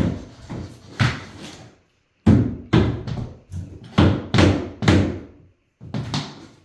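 Particleboard wardrobe frame's front brace being struck over and over to drive its pegs down into the frame: a dozen or so heavy knocks at uneven spacing, with a short pause about two seconds in.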